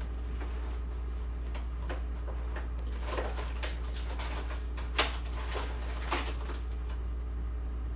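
A few short knocks and clicks from kitchenware being handled, the sharpest about five seconds in, over a steady low hum.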